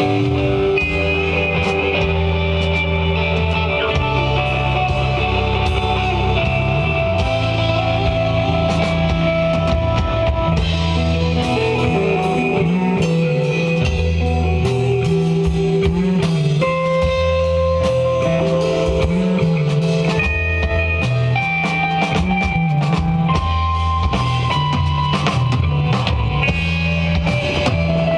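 Live instrumental desert rock jam: electric guitar holding long lead notes over a bass guitar line and a drum kit with frequent cymbal hits, playing steadily.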